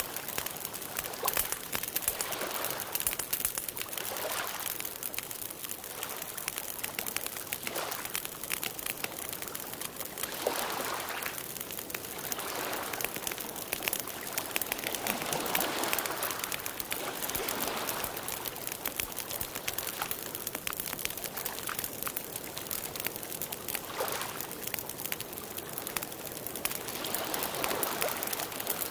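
Wood campfire crackling and popping steadily, with soft swelling washes every few seconds like small waves lapping on a stony shore.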